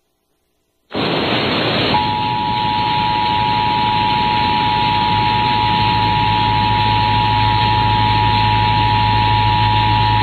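Emergency Alert System two-tone attention signal (853 Hz and 960 Hz sounded together) from an FM radio receiver: a steady two-pitched tone that starts about two seconds in and holds. It sits over heavy radio hiss and a low hum, which come in suddenly after about a second of silence.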